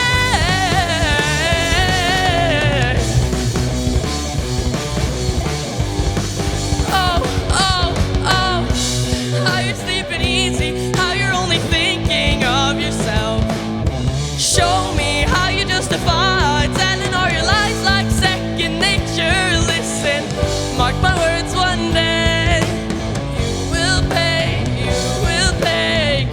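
Live rock band playing an instrumental stretch of the song: electric guitar, bass, keyboard and drum kit, with a lead melody wavering and bending in pitch above the band.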